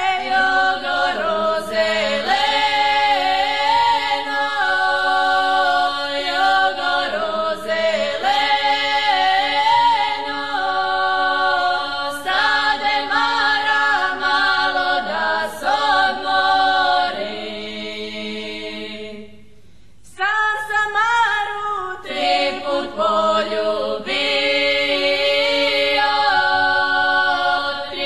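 Women's group singing a cappella in the southeastern Serbian 'na bas' two-part style: a sung melody over a steadier lower drone voice. It breaks off briefly about 19 seconds in for a breath, then carries on.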